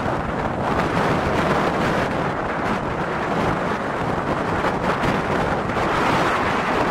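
Hurricane-force wind buffeting the microphone in a loud, steady, gusting rush, mixed with storm waves breaking and spraying over a pier.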